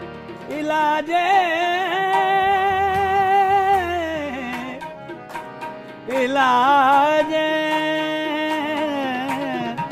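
Qawwali music: two long held melodic phrases, each sliding up into its note and wavering, over light percussive taps.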